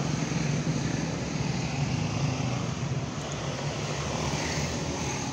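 Road traffic passing: a steady rush of vehicle noise, with a low engine hum that fades away about two seconds in.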